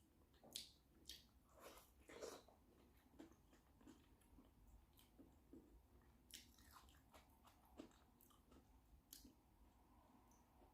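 A person biting and chewing shrimp-boil food close to the microphone, heard as quiet, irregular wet clicks and bites.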